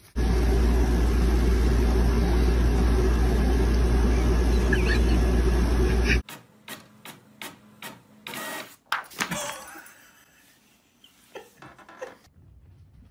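A loud, steady rumbling noise for about six seconds that cuts off abruptly. Scattered clicks and knocks follow, fainter, with quiet gaps between them.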